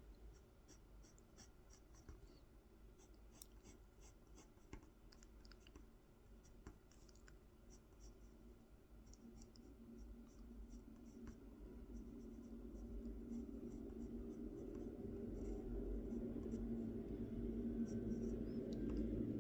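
Drawing a design freehand on a wooden honey dipper: faint scratching strokes that grow louder and more continuous over the second half.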